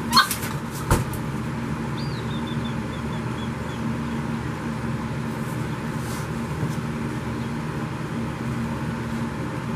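A hand-held umbrella snapping open with a sharp click, then a dull thump about a second in as it lands on the rubber-matted floor. A steady background hum follows.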